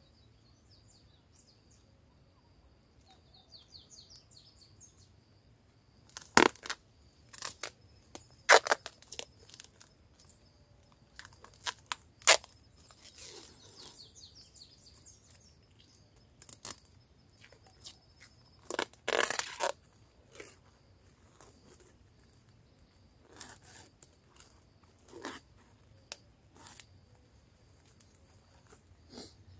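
Plastic wrapping crinkling and tearing in sharp, irregular bursts as it is wound and tied around a branch, one burst lasting about a second about two-thirds of the way in. Faint birdsong between the bursts.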